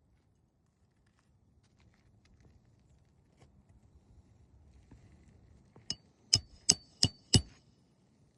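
Five sharp metallic knocks in quick succession, each with a brief ring, about three a second, after a few seconds of faint rustling and ticking.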